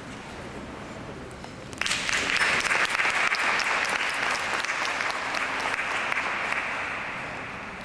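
Spectators applauding in an ice arena, starting suddenly about two seconds in and slowly dying down near the end.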